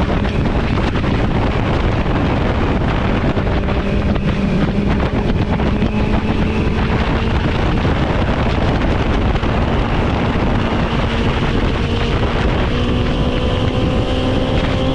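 BMW S1000XR's inline-four engine running under way, its note rising slowly as the bike gathers speed, heavily overlaid by wind rushing on the microphone.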